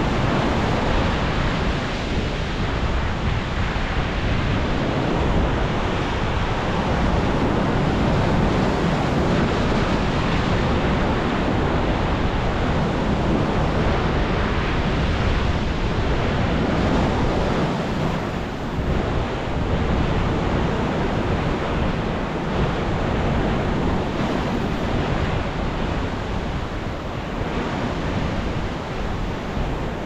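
Ocean surf breaking into a rocky canyon: a continuous wash of breaking waves and churning water that swells and eases without pause.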